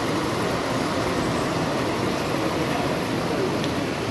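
Model train running past on its track, with a steady rattling rumble over the general hubbub of a busy exhibition hall.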